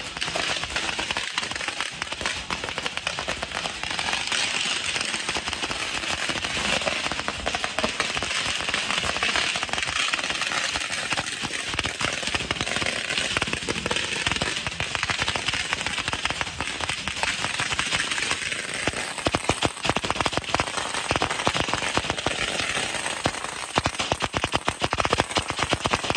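A long string of firecrackers going off in rapid, dense crackling bangs, several a second and without a break.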